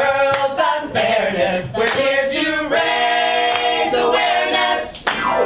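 Mixed ensemble of male and female voices singing together in harmony, a show-tune chorus, holding one long chord through the second half.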